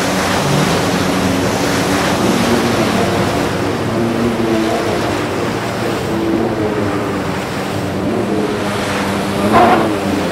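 Several jet ski engines running hard at racing speed, their overlapping tones shifting in pitch over a wash of water and wind noise. About nine and a half seconds in, a louder engine swells up and falls away as it passes.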